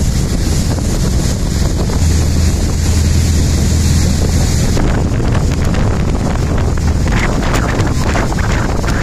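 Wind blasting across the microphone over the steady drone of a ferry's engine and water rushing past the hull. From about halfway through the wind turns gustier and more buffeting.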